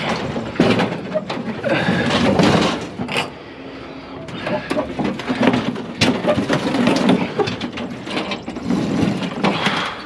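Sheet-metal charcoal grill being handled and shoved onto a trailer: a string of clanks and knocks with scraping, a little quieter for a second or so just before the middle.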